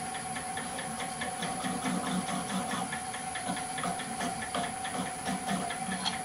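Wood lathe running with a steady whine and a regular ticking about five times a second, while a skew chisel coated with black spray paint rubs against the spinning oak barrel blank to scuff it for an aged look.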